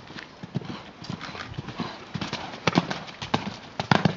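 Hoofbeats of a cantering horse on a sandy dirt arena: a quick, uneven run of hoof thuds that grows louder and denser in the second half.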